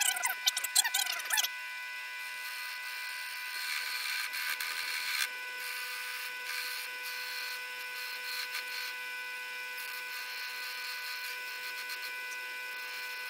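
Belt-driven electric motor running a converted wood lathe with a steady whine while a hand turning tool cuts a small block of wood spinning in the chuck. A brief, louder wavering squeal comes at the start, and the cutting gets louder and rougher around four to five seconds in.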